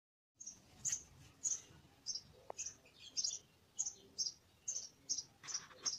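A small bird chirping over and over, about two short high chirps a second.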